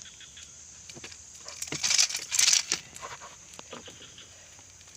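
A loud, scratchy scuffle lasting about a second, around two seconds in, over steady insect chirring.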